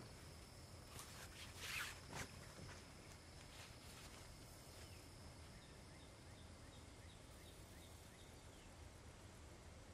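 Faint, quiet outdoor ambience: a few soft rustles in the first couple of seconds, then a low steady hiss with a thin, steady high tone underneath.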